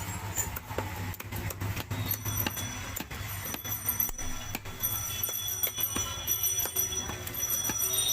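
Irregular sharp knocks and taps of a blade chopping through a large pangas fish, over a steady background hum.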